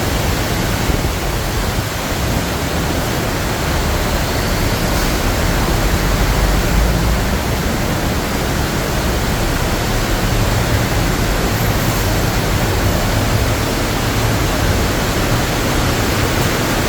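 Very heavy monsoon rain pouring down, a dense steady hiss of water that stays even throughout.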